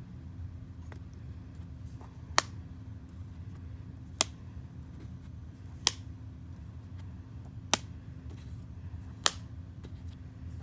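Copper pennies set down one at a time on a paper worksheet: five sharp clicks, about one every one and a half to two seconds, over a low steady hum.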